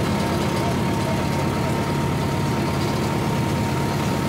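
Farm tractor's engine running steadily at an unchanging pitch, heard up close from the driver's seat.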